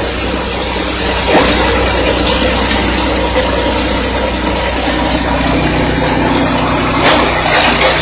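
Engine-driven multifunction chopper and grinding mill running steadily while milling corn together with its cobs: a steady engine drone under a dense rushing grinding noise, with a sharp knock about a second in and another near the end.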